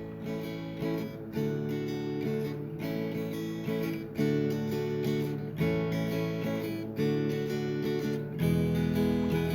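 Background music: strummed acoustic guitar with a steady rhythm, the chords changing about every second and a half.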